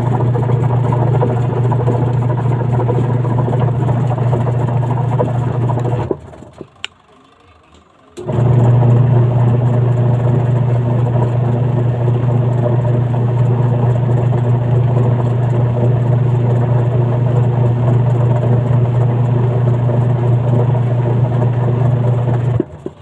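Newly installed washing machine wash motor running with a steady hum. It stops about six seconds in, starts again two seconds later and runs until it stops near the end, as the washer cycles the motor on and off during a test run.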